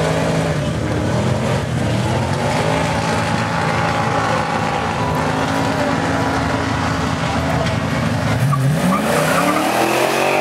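A car engine held at high revs with tyre squeal from a burnout. Near the end the engine revs up in a rising sweep as a car accelerates past.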